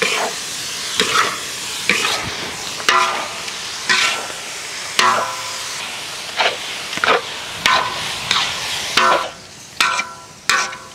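Metal spatula scraping and stirring food in a large iron wok, roughly one stroke a second, some strokes making the wok ring briefly. A steady sizzle of the food cooking runs underneath.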